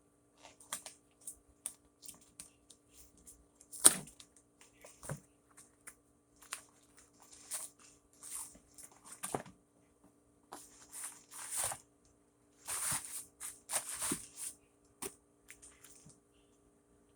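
A parcel being opened and unpacked by hand: scattered clicks and taps with bursts of rustling and tearing of packing, and one sharp knock about four seconds in.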